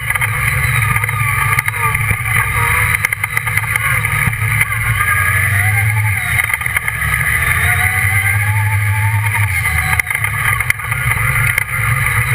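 Redline Revolt off-road buggy's engine heard from on board while driving a dirt track, the revs rising and falling as the driver accelerates and eases off.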